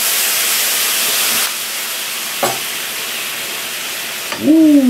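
Maple syrup sizzling as it hits hot roasted nuts in a frying pan, a loud hiss that eases after about a second and a half and then keeps going steadily. A single click sounds about halfway through.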